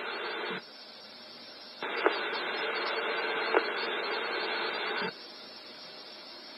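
Police radio scanner hiss: a keyed transmission with no voice is on until about half a second in and again from about 2 to 5 seconds in, with two faint clicks in the second one. Between and after them a lower, steady channel hiss.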